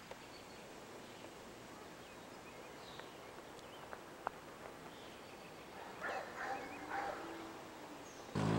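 Quiet outdoor ambience with faint bird chirps and a few light clicks; a dog barks about three times around six to seven seconds in. Near the end a loud, steady low drone with several tones starts abruptly.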